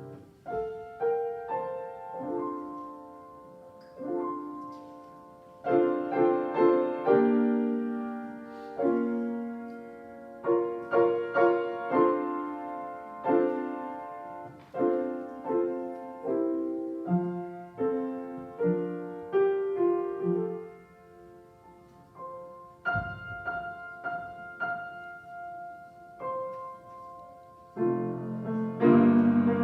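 Piano playing a slow piece, single notes and chords struck and left to ring out, dying down briefly after about twenty seconds before louder chords come in near the end.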